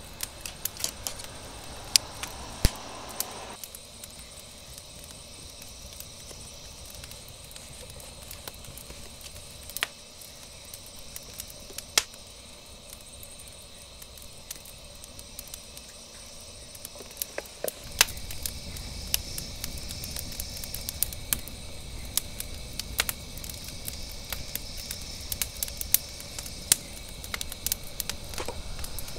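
Crickets chirring steadily, with scattered sharp clicks of small metal camp utensils being handled. From about 18 seconds in, a wood fire in a metal fire pit crackles over a low rushing rumble as air is blown into it through a fire blow pipe.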